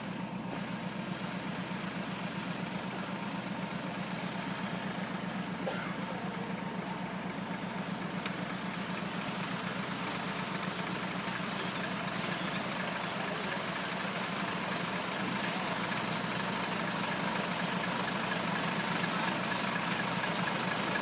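Heavy Volvo truck's diesel engine running at low revs while it crawls forward hauling a whole house on a trailer. It is a steady low throb that grows slowly louder as the truck approaches.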